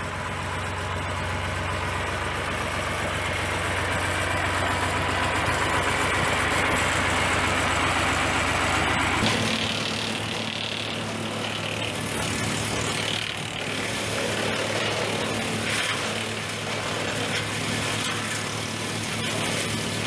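International Harvester diesel tractor engine running steadily. About nine seconds in, the sound changes to the tractor running a WoodMaxx PTO wood chipper, a steady mechanical hum with occasional faint ticks.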